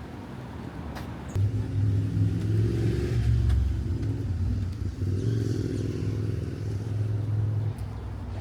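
A motor vehicle engine running close by, a steady low hum that cuts in abruptly about a second and a half in and eases off near the end.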